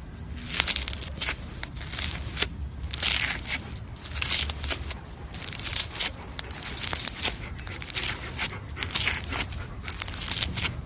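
Slime being squeezed and worked by hand: irregular bursts of crackling, one or two a second, with small sharp clicks in between.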